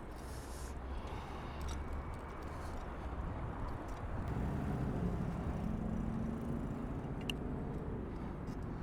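Road traffic on a city street with low rumble. From about halfway in, a passing vehicle's engine hum grows louder, then eases off near the end.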